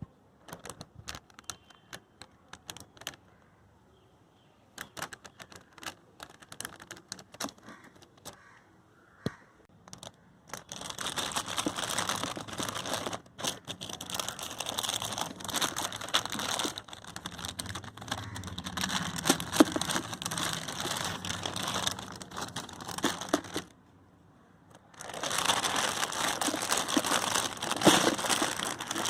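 Crinkling and rustling from hands working with a motorcycle clutch cable, with scattered light clicks at first, then long stretches of dense crinkling.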